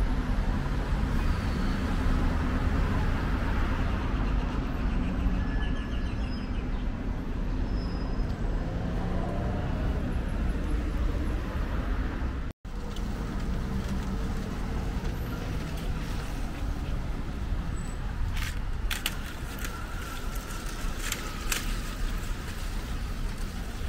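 Road traffic on a city street: cars and vans passing with a steady low rumble. The sound cuts out for an instant about halfway through, and a few light clicks come near the end.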